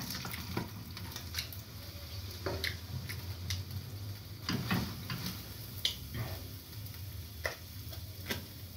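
Kitchen work sounds: scattered light clicks and taps, irregularly spaced, over a steady low hum.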